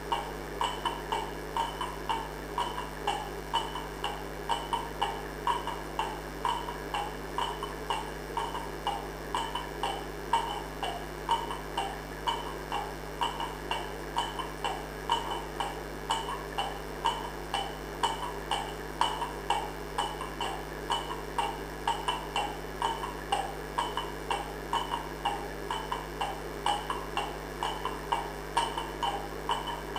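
A steady rhythmic beat of short percussive knocks, about two a second, over a constant low hum.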